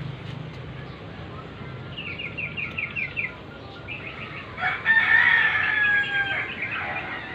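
A rooster clucking in a quick run of short notes, then crowing once in a long, loud call starting about two-thirds of the way through.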